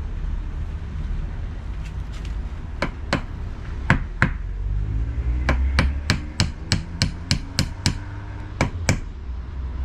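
A hammer driving a nail into a wooden fascia board: two pairs of separate blows, then a quick even run of about nine taps at roughly three a second, then two more.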